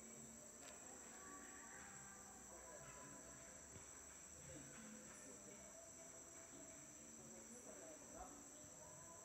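Near silence apart from a faint, steady, high-pitched insect chorus.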